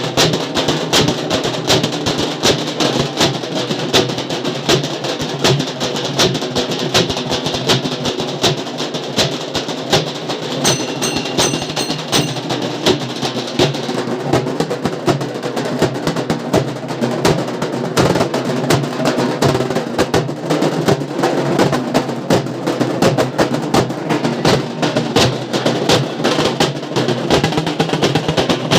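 A group of halgi frame drums beaten fast with sticks in a dense, unbroken rolling rhythm, loud and sharp.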